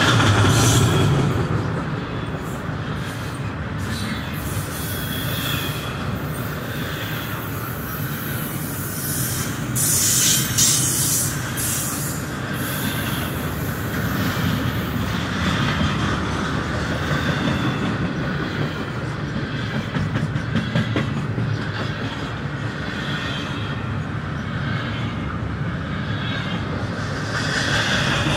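CSX double-stack intermodal freight train rolling past at close range: a steady rumble of steel wheels on rail with rhythmic clicking over the rail joints. About ten seconds in there is a brief, louder burst of high-pitched noise from the wheels.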